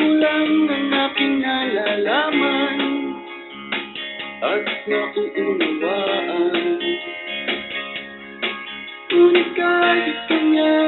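Music with plucked guitar accompaniment and a gliding melody line.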